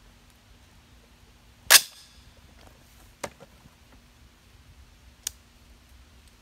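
A 6.5 Creedmoor AR-style rifle's Aero Precision bolt carrier slams forward once, sharply, about two seconds in, chambering a single round. Two lighter metallic clicks follow later.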